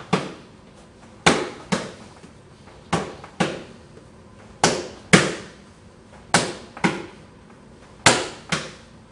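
Gloved punches landing on a partner's covering arms: sharp slapping impacts in pairs about half a second apart, a new pair every second and a half or so.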